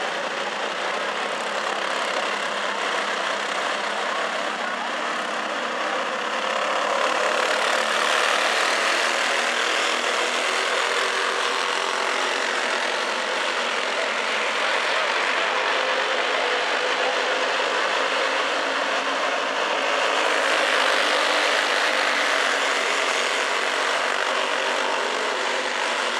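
A pack of Clone-engine racing go-karts, small single-cylinder four-stroke engines, running flat out together on a dirt oval as one continuous buzzing drone. It swells louder as the pack comes nearer, about seven seconds in and again about twenty seconds in.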